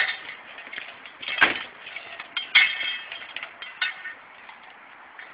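Plates of home-made riveted aluminum-sheet armor clinking against each other as the wearer walks, a sharp clink about once a second, growing fainter toward the end.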